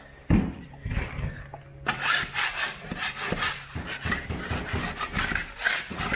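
Two knocks, then a hand saw cutting through plasterboard in quick back-and-forth strokes, about three a second.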